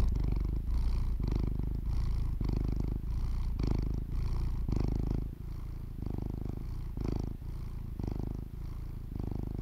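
Domestic cat purring close up: a low rumble that swells and eases with each breath, a little over once a second, growing softer about halfway through.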